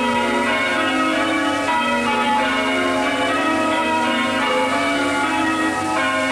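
Bells ringing continuously, many overlapping ringing tones sounding together at an even level.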